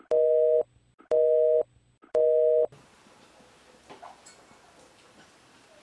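Telephone busy tone after a call is hung up: three half-second beeps of a steady two-note tone, about one a second. After the third beep only faint room tone remains.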